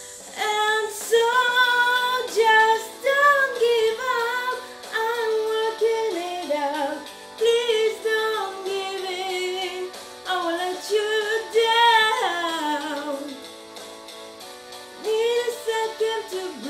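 A woman singing a song unaccompanied, one sung phrase after another, with a short pause of a second or two about three-quarters through.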